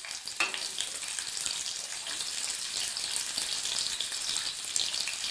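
Chopped red onions sizzling in hot oil in an aluminium pan just after being added, a steady crackling hiss as they are stirred. There is a single knock about half a second in.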